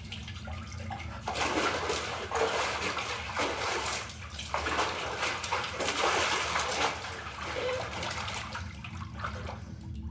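Bath water sloshing and splashing in a clawfoot bathtub as a person moves about in it, in irregular surges that start about a second in and die away near the end, over a low steady hum.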